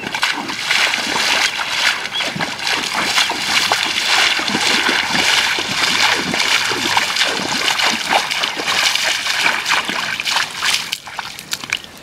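Bare feet wading through shallow water, a splash with each stride. The splashing stops near the end.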